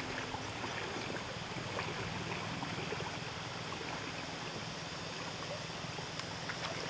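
Steady seaside ambience of wind and gentle water, with a few faint clicks.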